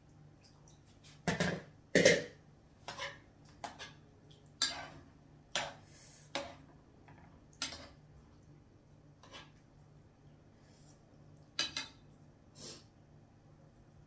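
Dishes and kitchen utensils clinking and clattering: about a dozen separate short knocks, the loudest pair about two seconds in and another near the end.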